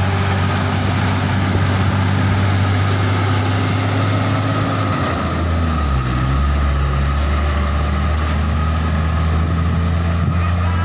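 Diesel engine of a heavy tractor-trailer loaded with concrete beams, running at low revs with a steady deep hum. Its note changes about halfway through.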